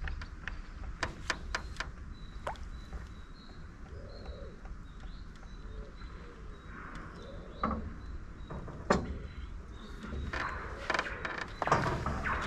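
Scattered knocks and clicks of things being handled in a small boat, the loudest about nine seconds in and a cluster near the end, over faint bird chirping and a low rumble.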